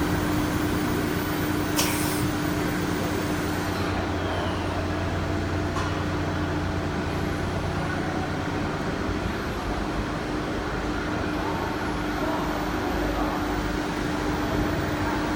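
CNC router with HSD spindles running, a steady hum under one constant tone, with a few faint clicks.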